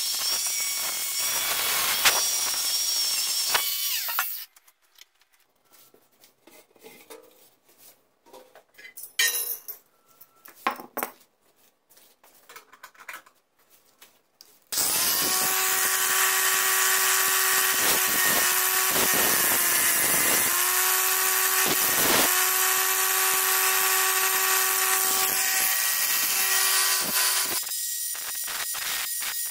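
Handheld power polisher with a foam buffing pad running steadily against copper, stopping about four seconds in. Ten seconds of faint knocks and handling follow, then the motor starts up again and runs for about thirteen seconds, its pitch dipping briefly twice as the pad is pressed into the metal.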